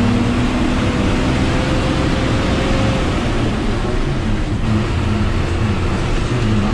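Bus engine running as the bus drives along, heard from inside the cabin: a loud, steady low rumble with road noise.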